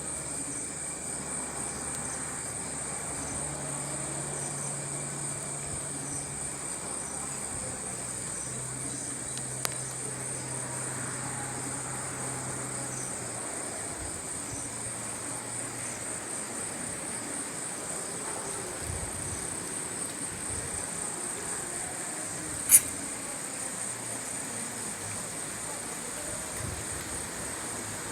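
Crickets trilling in a steady, high-pitched chorus, with a faint low hum coming and going underneath. A single sharp click stands out about three quarters of the way through.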